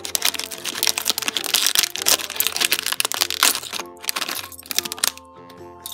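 Thin plastic bag crinkling as it is pulled open and handled, with small plastic building bricks clicking as they spill onto the tabletop. The rustling dies down near the end, leaving light background music.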